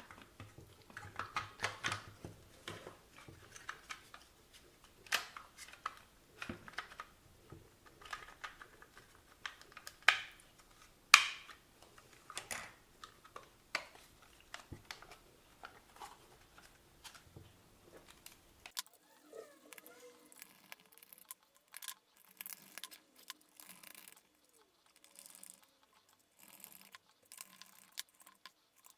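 Scattered sharp clicks and taps of a hard plastic RC car transmitter case and its parts being handled and worked apart, some louder knocks around the middle, lighter and fainter clicking toward the end.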